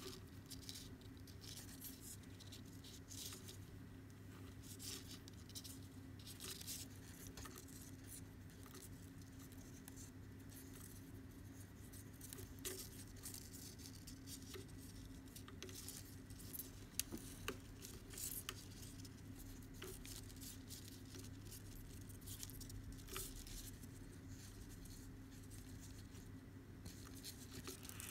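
Faint rustling and light ticks of macrame cord being pulled and knotted by hand, over a steady low hum.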